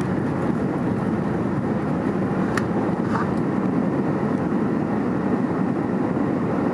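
Steady cabin noise of a jet airliner rolling on the ground, engine and runway rumble heard from a window seat, with a faint click about two and a half seconds in.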